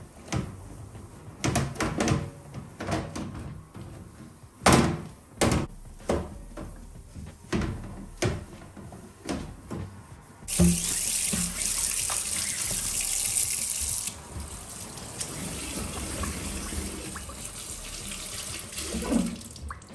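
A string of short knocks and rubs from a cloth and gloved hands wiping a countertop beside a stainless steel sink. About halfway through, the tap comes on and water runs into the steel sink, heavy for a few seconds and then lighter, as a sponge is rinsed under it.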